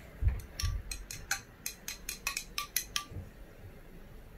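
A long metal bar spoon stirring a drink in a glass, clinking against the glass about five times a second. The clinks stop about three seconds in.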